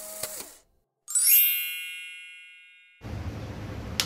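Background music fades out, and after a moment of silence a chime sound effect plays: a quick rising shimmer into a bright ringing ding that dies away over about two seconds, then cuts off. Room noise returns, with a single click near the end.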